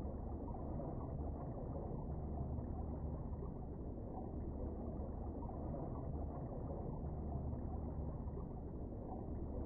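Steady, muffled low rumble of water picked up by an underwater camera in its waterproof housing, with nothing above a dull hum and no distinct events.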